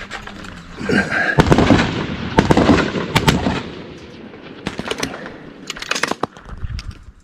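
Gunfire: many sharp shots in quick succession, clustered in the first half, with a few more a little later.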